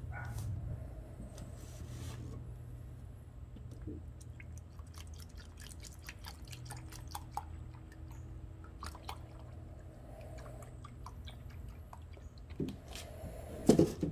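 Epoxy primer activator poured from a rectangular metal can into a plastic mixing cup: a thin stream of liquid with many small drip-like ticks, over a steady low hum. A louder knock comes near the end.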